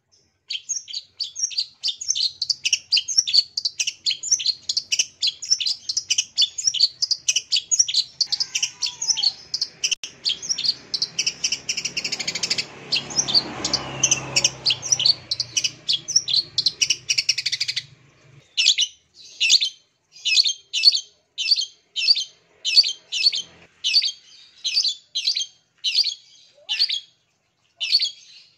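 Long-tailed shrike (cendet) singing a fast, unbroken chatter of sharp high notes. About eighteen seconds in it changes to separate harsh calls, about two a second.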